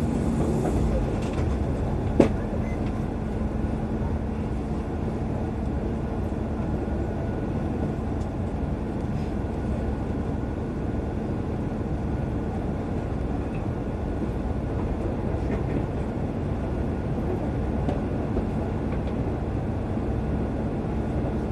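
Steady low rumble of a bus's engine and road noise inside the cabin, picked up by a phone in a chest pocket, with one sharp click about two seconds in.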